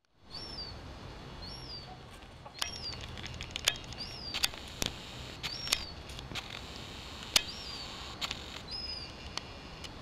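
Gull chick peeping: a string of thin, high calls, each rising then dropping in pitch, about one a second. A steady background hiss and several sharp clicks run under the calls.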